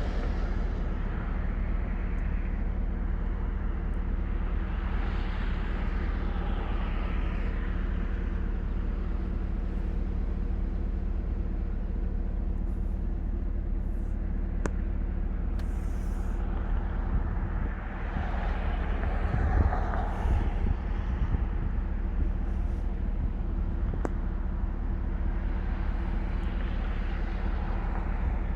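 A steady low drone made of several layered tones, running unbroken, with a hiss of noise that swells up and fades away three times.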